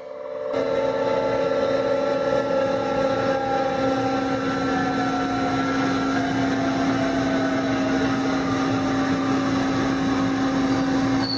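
Factory machinery running steadily: a constant hum with fainter whining tones that slowly fall in pitch.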